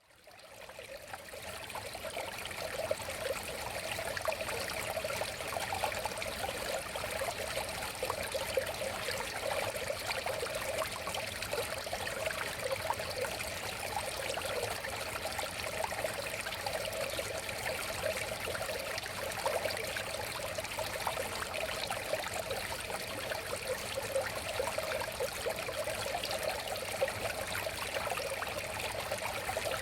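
River flowing: a steady sound of running water, fading in over the first two seconds.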